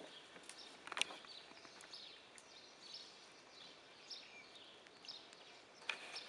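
Birds chirping and whistling, many short calls overlapping, with two sharp knocks, one about a second in and one near the end.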